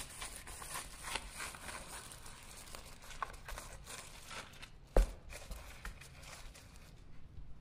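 Plastic cling film crinkling and crackling as it is stretched and pressed down over a glass mixing bowl, with one sharp knock about five seconds in. The rustling dies away near the end.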